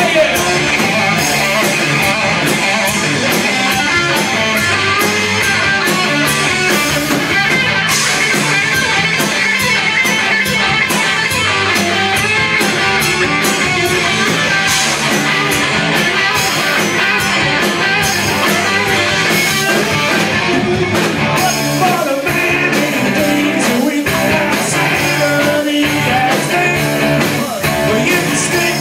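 Live rock band playing amplified: electric guitars and a drum kit with steady cymbal and drum hits, loud and continuous.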